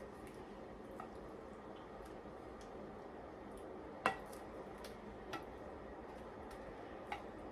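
A few sharp clinks of kitchenware over a faint steady hiss, the loudest about four seconds in.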